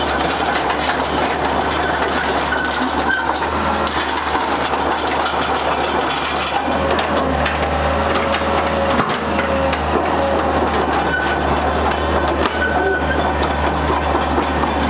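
Hitachi hydraulic crawler excavator travelling on its steel tracks: the diesel engine runs steadily under a continuous clanking rattle of the track links, with brief whining tones now and then.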